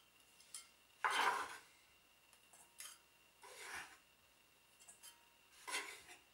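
Kitchen utensils scraping in short separate strokes, the loudest about a second in: a utensil stirring in a stainless steel mixing bowl and a chef's knife scraping chopped onion across a wooden cutting board.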